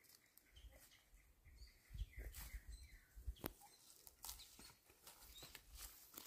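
Faint bird chirps among scattered clicks and rustles.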